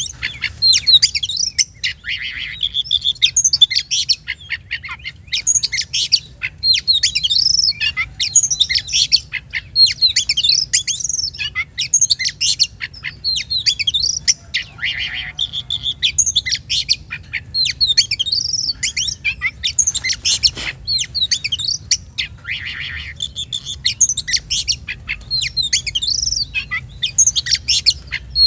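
Oriental magpie-robin (kacer) singing continuously: a fast, unbroken run of varied whistles, rising and falling slurs and a few rasping notes.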